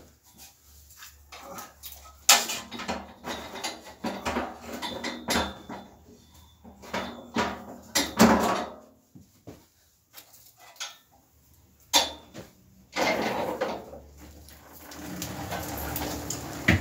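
Clattering metal knocks and rattles from a Grip petrol generator's steel frame as it is handled and shifted, with a steadier rumble in the last couple of seconds as it is rolled on its wheels. The engine is not running.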